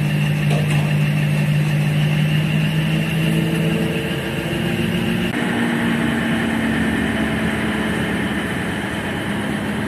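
A train's engine running steadily with a low hum, its pitch shifting about five seconds in.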